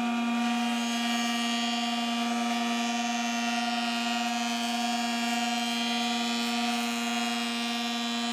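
Kity 636 jointer/planer running with a steady hum and whine as a board is fed over its cutter head for a jointing pass with freshly sharpened knives.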